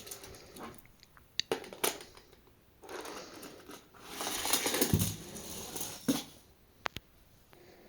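Small toy cars being handled: sharp plastic and metal clicks and knocks, with a stretch of scraping, rolling rattle in the middle.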